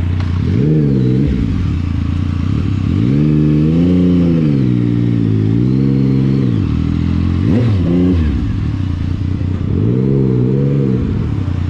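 Motorcycle engine running and being revved up and down several times, its pitch climbing, holding and falling back to a lower steady note between revs.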